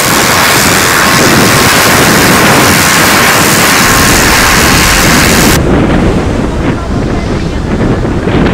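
Wind buffeting the microphone over waves breaking on a pebble beach. A loud, steady hiss covers everything at first, then cuts off abruptly about five and a half seconds in, leaving the low wind rumble and the surf.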